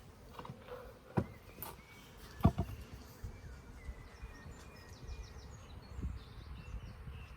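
Honeybees buzzing around an open hive, with two sharp knocks about a second and two and a half seconds in.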